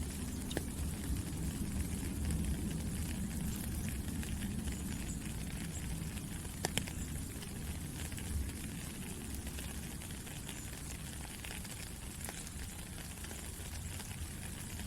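Steady rain falling, a continuous even hiss over a low rumble, with a few sharper single drop hits, the clearest a little under halfway through.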